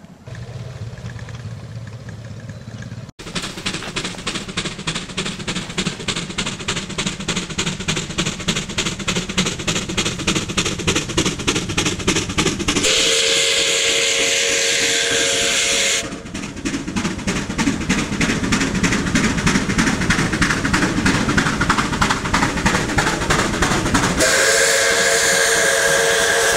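Narrow-gauge C2 class 0-8-0 steam locomotive working towards the listener, its exhaust beats steady and growing louder as it comes. Its whistle sounds for about three seconds midway, and again near the end.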